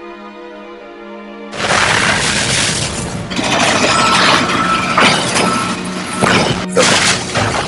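A music bed holding a sustained chord. About a second and a half in, loud rough crashing and rattling noise from earthquake footage cuts in over it, with several sharp louder hits.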